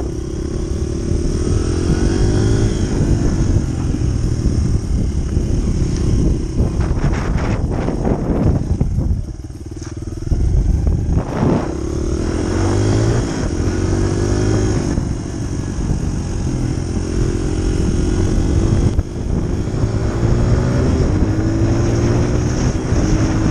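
Honda CRF100F dirt bike's small four-stroke single-cylinder engine running under throttle, its revs repeatedly climbing and dropping back, with a brief let-off about nine seconds in before it pulls again.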